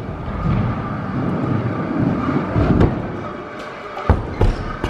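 Stunt scooter wheels rolling over a ramp with a low rumble, then two sharp impacts about four seconds in as the rider crashes and the scooter slams onto the ramp.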